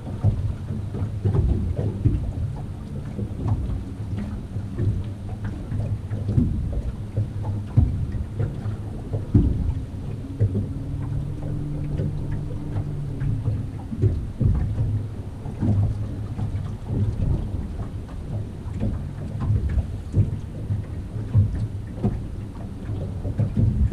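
Wind buffeting a boat-mounted camera's microphone: a steady low rumble with irregular thumps. A faint hum swells between about ten and fourteen seconds in.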